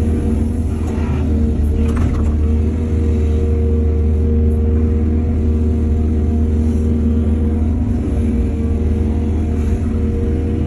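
Heavy diesel earthmoving machinery running steadily: a constant low engine drone, with a few faint clanks about one and two seconds in.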